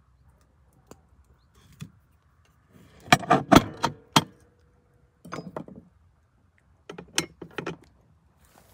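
Metal clanks and clinks in three clusters from a heavy potato roaster and its lid being handled, the first cluster the loudest, with a brief ringing note after it.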